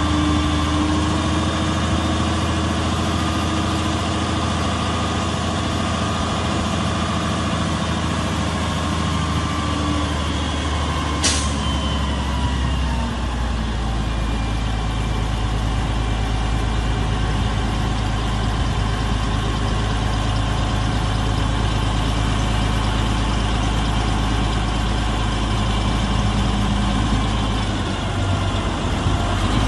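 Cummins M11 diesel engine of a dump truck running steadily while the hydraulic hoist raises the dump bed. A single sharp click comes about 11 seconds in, and the engine's low note changes shortly after.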